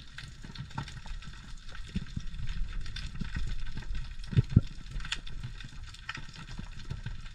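Underwater reef ambience picked up by a diving camera: a constant fine crackling and clicking over a low rumble, with a few low thumps, the two loudest a little past the middle.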